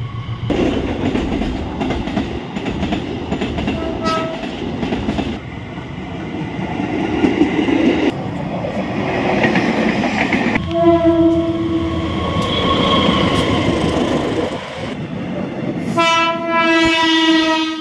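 Trains running past close by, with wheels clattering and rumbling on the rails. The sound changes abruptly several times. A train horn sounds a long blast around the middle, and again near the end as a KRL Commuter Line electric train approaches.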